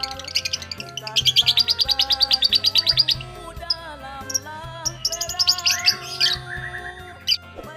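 Lovebird chattering in fast runs of sharp, high chirps, a long run of about two seconds and a shorter one later, over background music.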